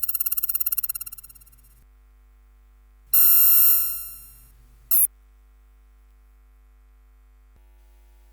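Synthesized laser sound effects: a fast-pulsing electronic tone fades out in the first second and a half. A louder, steady laser tone starts about three seconds in and fades away, then a short quick zap comes near five seconds.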